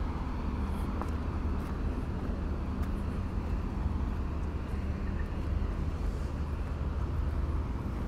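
A steady low engine hum over general outdoor street noise.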